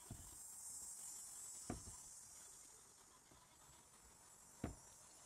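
Carpet adhesive being spread over a plywood panel with a small spreader: a faint, soft smearing hiss that swells and fades, with three light taps.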